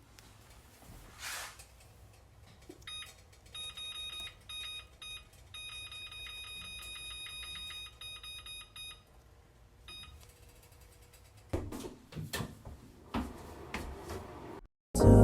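Electronic beeping from an appliance: a few short beeps, then a run of repeated beeps lasting several seconds, all at one steady high pitch. Near the end, several knocks and clatters.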